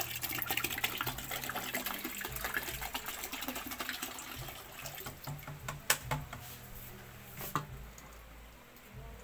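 Water pouring and splashing into a plastic pail, thinning out after a few seconds, then a thin stream from a kitchen faucet running into a plastic bottle. Two sharp clicks come near the end.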